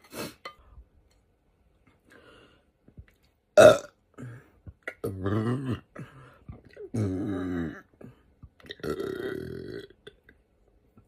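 A woman burping. A short, sharp, loud burst comes a little under four seconds in, followed by three drawn-out, low, pitched burps of about a second each.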